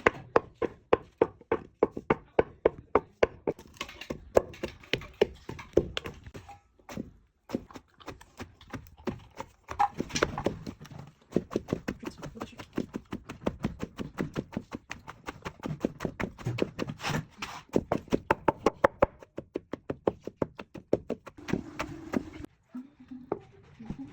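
Rapid, steady knocking, about four strikes a second, as food is chopped or pounded. The strikes stop briefly about seven seconds in and again near the end.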